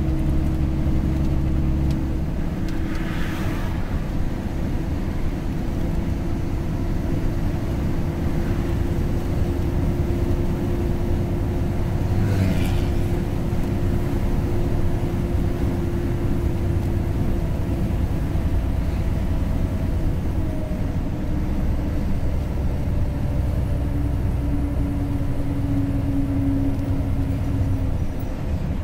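Car driving at speed on a highway: steady engine and tyre rumble with a constant hum, and two brief swells of hiss about 3 and 12 seconds in.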